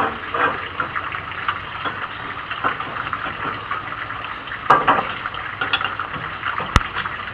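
Wood fire burning in a rocket stove: a steady rushing noise full of small crackles, with a few louder snaps about five seconds in and a sharp click near the end.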